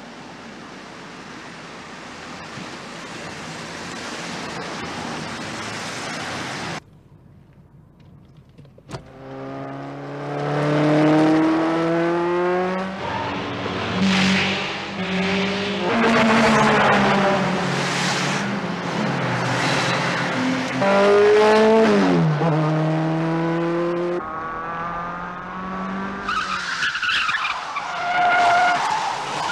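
First-generation Toyota Soarer's straight-six driven flat out, with tyres squealing. For several seconds there is a steady road and engine rush, then, after a short quiet gap and a click, the engine revs up repeatedly through the gears, its pitch falling once as it slows. Near the end there is long, high tyre squeal as the car slides.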